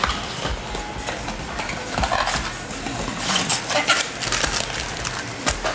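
A cardboard trading-card blaster box being opened by hand and its foil-wrapped packs pulled out and handled: irregular crinkling and rustling with light knocks, in several short flurries.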